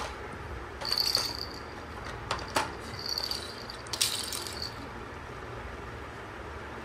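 Plastic baby rattle shaken in short bursts with a high jingling ring, about a second in, around three seconds and again about four seconds in, with a few sharp plastic clicks between the bursts.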